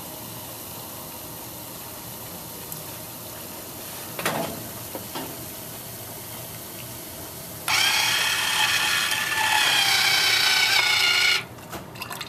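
Cola pouring and fizzing into a glass from a solenoid dispensing valve, a steady faint hiss. About eight seconds in, the turntable's drive motor starts with a steady whir for nearly four seconds as it turns the glass to the next dispenser, then stops, followed by a few clicks.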